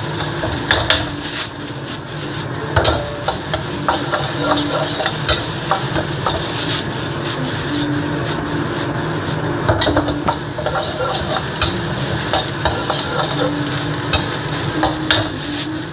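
Salted egg yolk fried rice sizzling in a pan while a spatula stirs and tosses it, with frequent short clinks and scrapes against the pan.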